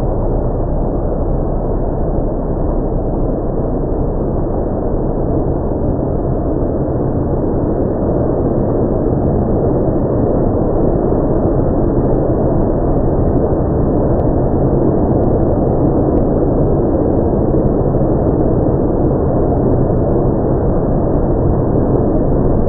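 Automatic tunnel car wash machinery running: a steady rushing noise of water spray and spinning cloth curtains and side brushes scrubbing a vehicle, a little louder from about eight seconds in.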